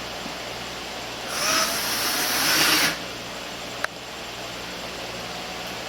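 Electric drill-driver running once for about a second and a half, driving a small screw into the speaker box, followed a second later by a single sharp click.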